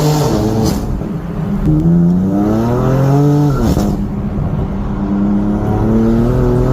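BMW M car's engine accelerating hard through the gears: the note climbs steadily, drops suddenly at an upshift about three and a half seconds in, then begins climbing again in the next gear near the end.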